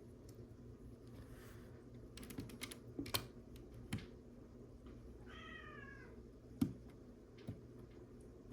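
A house cat meows once, a single call of under a second about five seconds in. Around it come scattered sharp clicks and taps of small plastic LEGO pieces being handled, the loudest shortly after the meow.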